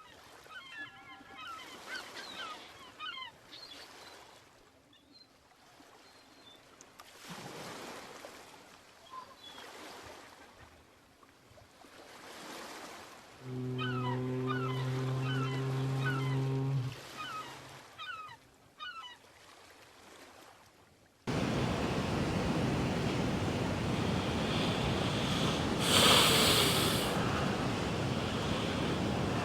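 Faint birds chirping, then a single long, low horn blast lasting about three and a half seconds. About two-thirds of the way through the sound cuts abruptly to steady surf and wind, with a louder wave around 26 s.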